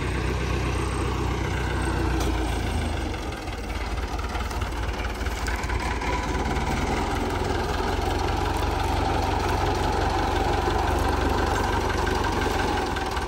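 Red farm tractor's diesel engine idling steadily close by, a continuous low rumble, dipping briefly about three and a half seconds in.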